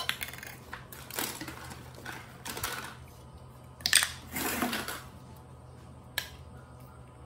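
Plastic toys being handled and knocked about by baby monkeys: a few scattered clacks and rustles, the loudest about four seconds in, and one sharp click near the end.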